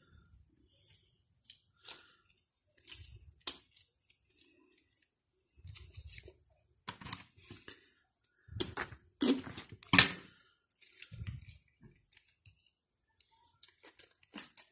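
Small scissors snipping string, amid rustling and clicking as string is threaded through a plastic drinking straw. The sharpest, loudest snips and clicks come in the middle.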